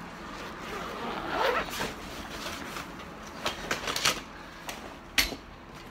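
A fabric carrying bag for a studio-light kit being handled and opened, with rustling and a sweep like a zip about a second and a half in, then several sharp clicks and clacks from the kit's parts, the loudest near the end.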